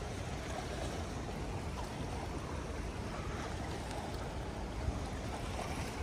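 Steady rushing of shallow river water flowing over and around rocks, mixed with low rumbling wind.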